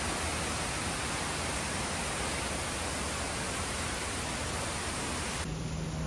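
Steady, even rush of a waterfall's falling water. Near the end it cuts off abruptly to a duller, quieter background with a low steady hum.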